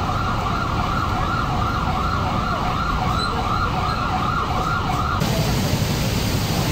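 Emergency vehicle siren on a rapid yelp, its pitch swooping up and down about three times a second. It cuts off abruptly about five seconds in, leaving background noise with a low hum.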